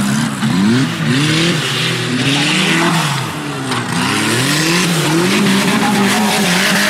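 Off-road 4x4 race trucks' engines revving hard, the pitch climbing and dropping again and again as the throttle is worked, with two engines overlapping at times.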